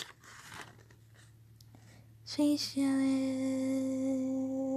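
A person humming: after a couple of seconds of near quiet, a short note and then one long steady note.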